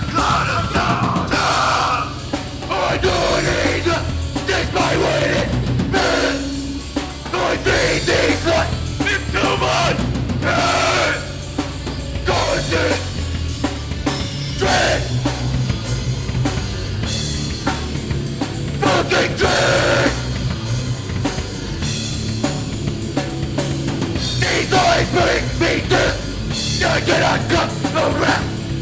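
A band playing loud heavy rock live, with the drum kit's kick and snare prominent throughout.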